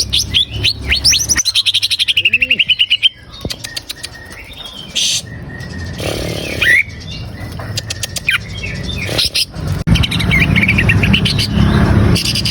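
Green leafbird (cucak ijo) singing. A fast run of sweeping whistled notes comes first, then scattered single calls, and a rapid chattering phrase starts near the end.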